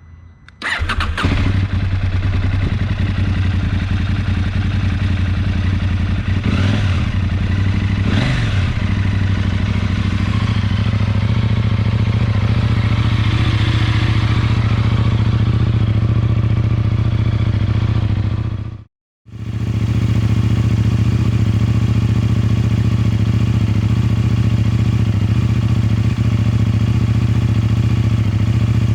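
Husqvarna Norden 901's 889 cc parallel-twin engine, breathing through a Tekmo slip-on exhaust with the silencer baffles removed. It starts up about a second in and settles into a steady idle, with two short throttle blips around six and eight seconds. The sound cuts out for a moment about two-thirds of the way through, then the idle carries on.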